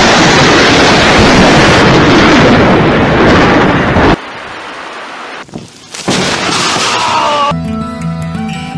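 Violent storm recorded on a phone: wind and rain hammering the microphone in a sudden, heavily overloaded roar for about four seconds, cut off sharply. After that comes quieter storm noise, and music starts near the end.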